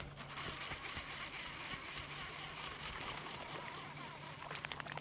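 Baitcasting fishing reel wound in fast, a steady whir, with a few sharp clicks near the end.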